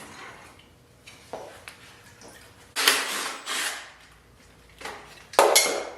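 Water sloshing and splashing out of a two-stroke dirt bike's exhaust pipe in short bursts, twice around the middle and once near the end. The pipe is full of water, which the owner suspects may be a sign of a blown head gasket.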